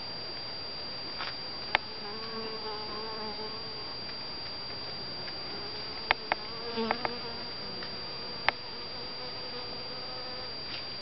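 Honey bees buzzing as they fly around the flowers, the buzz rising and fading as a bee passes close twice. A few sharp clicks stand out, and a faint steady high whine runs underneath.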